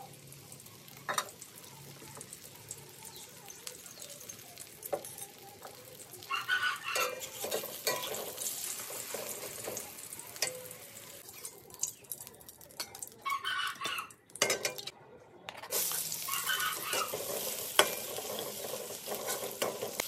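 Egg omelette frying in a wok, with a metal spatula and spoon scraping and tapping the pan as it is turned. After a short break, sliced shallots, garlic and chilli sizzle in oil while being stirred.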